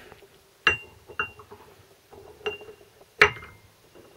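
Steel Land Rover transfer-box parts, a shaft and its drive dog, clinking together as they are fitted and handled: four light metallic clinks with a short ring, the loudest about three seconds in.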